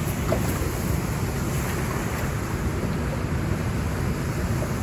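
Steady rushing of a waterfall and the churning river below it, with wind buffeting the microphone.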